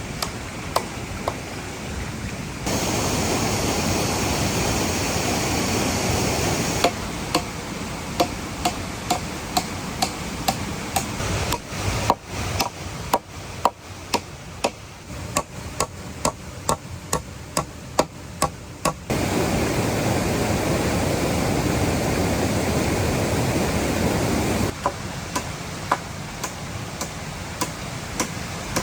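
Rushing waterfall water with a steady run of sharp tool strikes, about one or two a second, as work on the hut's wooden frame goes on. The water noise jumps in level abruptly a few times.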